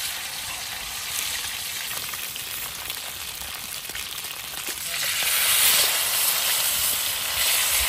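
A steady hiss with faint scattered crackles, growing louder about five seconds in.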